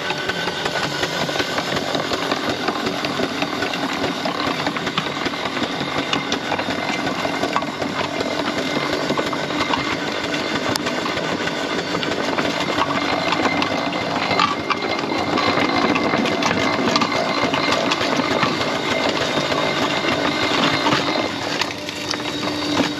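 4-inch scale Foster steam traction engine running and driving under steam, a continuous mechanical clatter with its iron wheels rolling over gravel.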